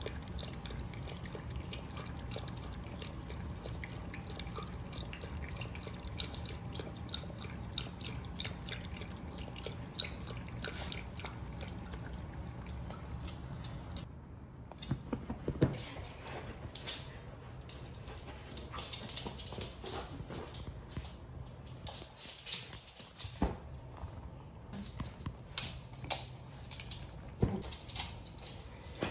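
Chihuahua lapping water from a bowl with fine quick ticks, then, after a cut, scattered sharp clicks, knocks and scuffles as the dog moves about on a hard floor and paws at and shoves a fabric pet bed.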